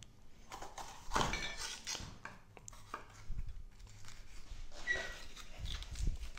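Kitchen knife cutting a red bell pepper on a wooden chopping board: irregular taps of the blade on the board and crisp slicing through the pepper's flesh, a louder cut about a second in.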